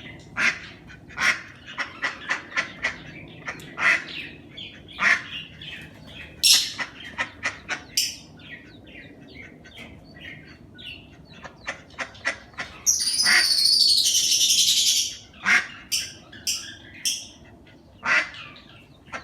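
Birds calling, with many short chirps and squawks repeating throughout. About two thirds of the way in there is a loud burst of noise lasting a couple of seconds.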